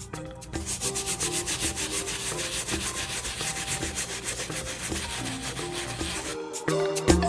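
Soft-bristle shoe-cleaning brush scrubbing a wet sneaker's knit upper with cleaning solution: rapid back-and-forth scratchy strokes that stop abruptly about six seconds in.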